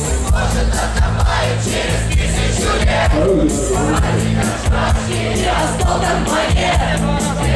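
Live rock music played loud, with a steady bass line and drum beat, and many voices singing along together.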